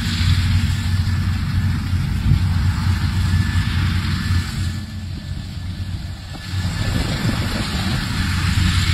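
Diesel engines of a sugarcane harvester and the tractor pulling the cane wagon running steadily under load, with a deep steady hum; the sound eases for about a second and a half a little past the middle.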